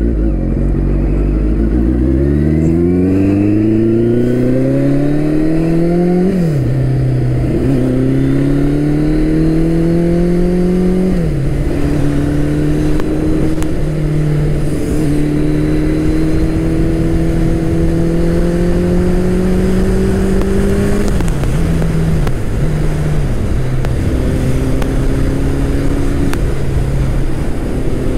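Turbocharged Suzuki Hayabusa's inline-four engine accelerating from near a standstill up through the gears. Its pitch climbs, drops at upshifts about six, eleven and twenty-one seconds in, dips briefly twice more, then settles to a steady cruise, with wind noise over it.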